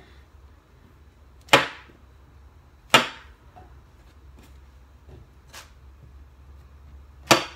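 Kitchen knife cutting through button mushrooms and knocking on the bare worktop: three sharp knocks, about a second and a half in, about three seconds in and just before the end, with a few fainter taps between.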